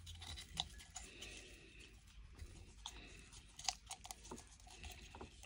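Faint scattered ticks and crackles of powder-filled candy straws being snapped and worked open with the fingers over a mug, emptying out the powder.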